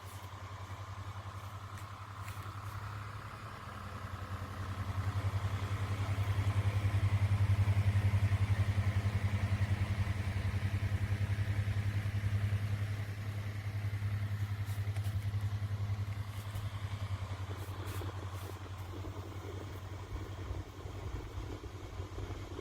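Pro Breeze mini clip-on desk fan running with a steady motor hum and whoosh of air, which grows louder from about five seconds in and then eases back a little.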